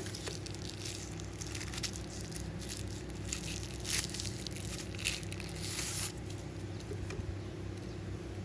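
Rustling and crackling with scattered small clicks, rising to short hissy bursts about four seconds in and again between five and six seconds, over a steady low hum.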